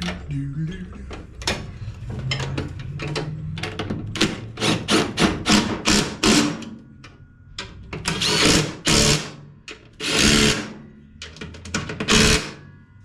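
DeWalt impact driver hammering in a string of short bursts, then three longer runs near the end, as it runs in the bolts holding a new blade spindle to the mower deck.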